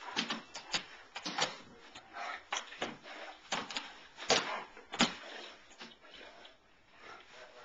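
A German Shepherd puppy and a Great Dane play-wrestling on a hardwood floor: a rapid, irregular scatter of claw clicks and paw thumps, with two louder thumps about four and five seconds in.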